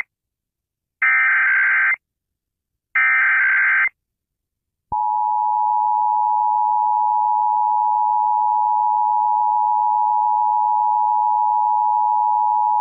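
Emergency Alert System SAME header: two bursts of rapid warbling digital data tones, each about a second long and a second apart. About five seconds in, the EAS two-tone attention signal starts and holds steady.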